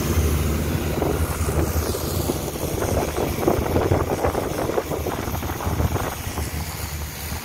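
Long-tail boat engine running steadily under way, a low drone, with water rushing and splashing along the hull, strongest around the middle.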